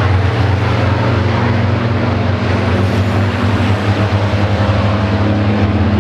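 Racing trucks' diesel engines droning steadily together as the pack runs round the circuit.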